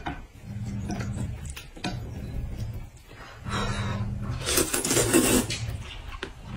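A person slurping sweet-potato starch noodles from a bowl of hot and sour broth, with a loud, noisy slurp about four and a half to five and a half seconds in and a few small clicks of chopsticks on the bowl. A low hum comes and goes underneath.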